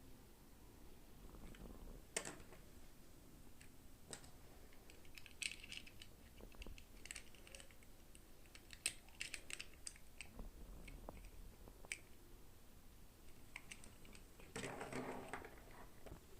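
Faint, scattered clicks and light rustling of small plastic toy packaging and parts being handled, with a denser rustle near the end.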